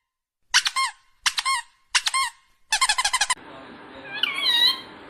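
A parrot squeaking in short high, paired notes, three times, then a quick run of squeaks. After that comes one longer squeak that dips and rises in pitch over a steady background hum.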